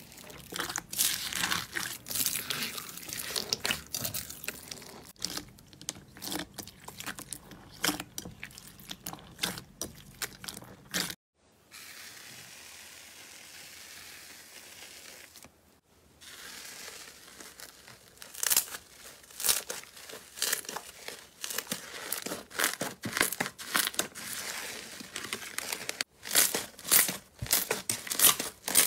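Slime being squeezed and pressed by hand, with dense wet crackling and popping: first crunchy slime packed with foam beads, then more crackling as hands press down on blue slime near the end. A brief stretch about 11 s in holds only a soft, even hiss as a stick stirs foamy blue slime.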